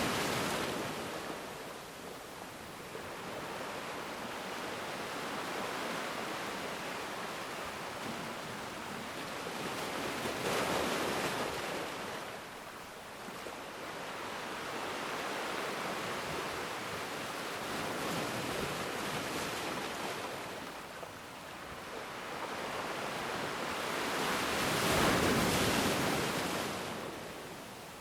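Ocean surf: waves breaking and washing in, rising and falling in slow surges, with the loudest swells about ten seconds in and again near the end.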